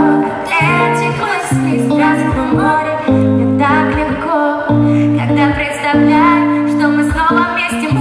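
Pop song with a woman singing the melody over a backing track of long, repeating bass notes.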